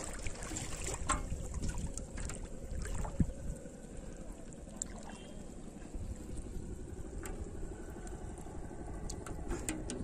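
Shallow water sloshing and splashing around wading legs as a cast net is pulled in by hand, over a steady low rumble, with a few light clicks scattered through.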